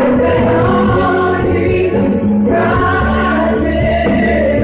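Gospel music: a choir singing long held notes over a band with a steady bass.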